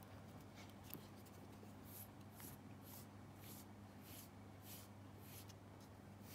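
A nekojasuri cat-grooming file stroked through a cat's fur: faint, scratchy brushing strokes about twice a second, starting about two seconds in.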